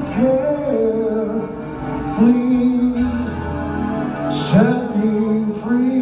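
Live band playing a song, with women's voices singing long held notes over the band.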